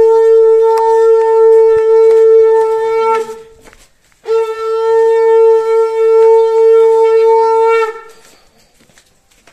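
Conch shell (shankha) blown in two long, steady blasts for the wedding ritual: one already sounding that ends about three seconds in, then after a short breath a second blast of about three and a half seconds.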